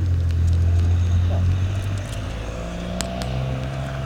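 Volkswagen Jetta's engine and exhaust making a loud, low drone that eases off about two seconds in.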